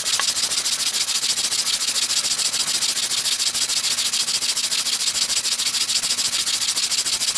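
Wooden sole of a Stanley No. 23 transitional hand plane rubbed back and forth on sandpaper in quick, even strokes, a steady rhythmic scratching: the worn sole being flattened.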